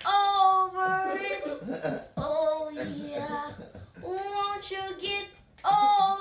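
A young girl singing solo, holding long notes in short phrases with brief breaths between.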